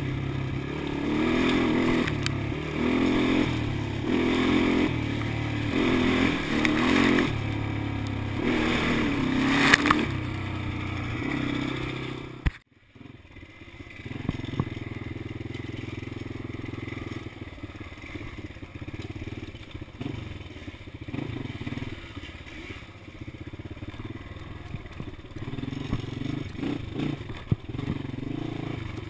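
ATV engine heard from on board, revving up and falling back again and again. About twelve seconds in the sound cuts out briefly, then the engine runs quieter and steadier with scattered knocks and scrapes.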